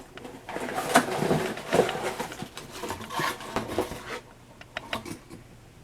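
Rustling and handling of packaging and items in a cardboard subscription box, with irregular crinkles and a few sharp clicks, quieting near the end.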